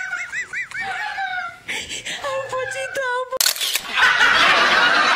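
Wordless, high-pitched, pitch-shifted voice sounds that waver up and down, then from about three and a half seconds in a loud hissing noise that takes over.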